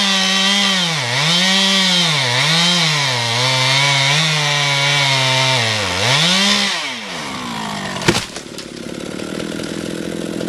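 Chainsaw cutting through a dead oak log, its engine pitch sagging and recovering several times under load. About seven seconds in the engine drops back, and a second later comes one sharp, heavy thud, with the saw idling afterwards.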